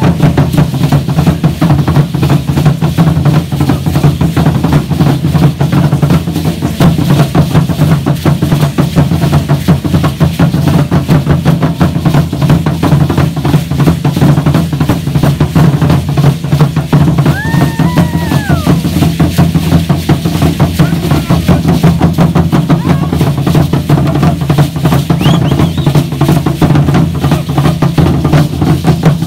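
Aztec huehuetl drums beating a fast, steady dance rhythm, with the dense rattle of the dancers' ankle rattles over it. A short pitched call rises and falls about seventeen seconds in.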